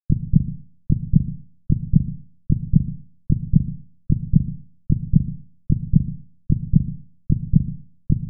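Heartbeat sound effect: a low lub-dub double thump repeating steadily about every 0.8 seconds, roughly 75 beats a minute.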